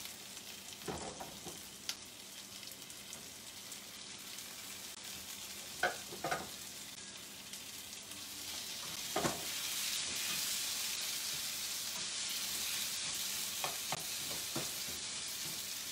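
Chopped tomato sizzling in hot oil with fried onion and ginger-garlic paste in a non-stick frying pan, stirred with a slotted spatula that scrapes the pan a few times. The sizzle grows louder about halfway through.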